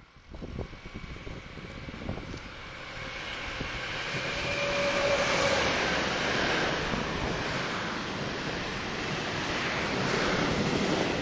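Electric passenger train passing beneath on the new track, building over the first few seconds to a loud, steady rumble of wheels on rails. A high whine rises out of it partway through.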